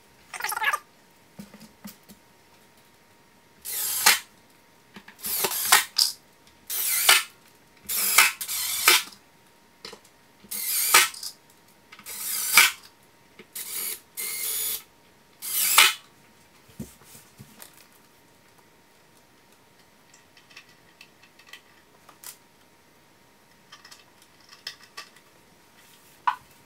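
Cordless drill (Milwaukee Fuel) driving screws in about a dozen short runs, each under a second, fastening a 12-inch subwoofer into its carpeted enclosure. A few light knocks of handling follow, over a faint steady high tone.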